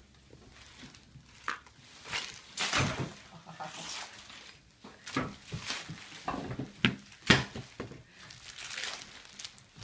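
Small foil-and-plastic packets and wrappers crinkling and rustling in irregular handfuls as they are dropped and piled onto a person lying on the floor, with the sharpest crackle about seven seconds in.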